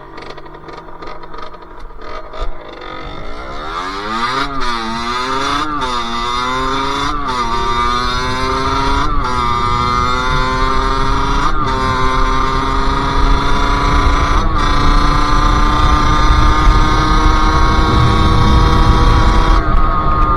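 Sherco SM-R 50's 50cc two-stroke engine accelerating hard and shifting up through the gears. The pitch climbs and drops back at each of about six shifts, then holds at a steady high pitch at speed, getting louder overall.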